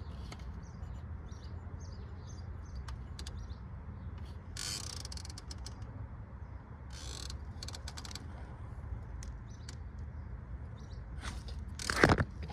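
Scattered light clicks and brief scrapes of parts being handled and fitted by hand, with a louder clatter near the end, over a steady low hum.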